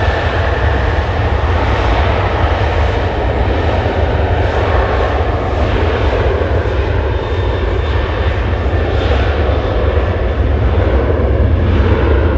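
Turbofan engines of a departing Ryanair Boeing 737 at takeoff power: a steady, loud rush of jet noise with a faint high whine in the first couple of seconds.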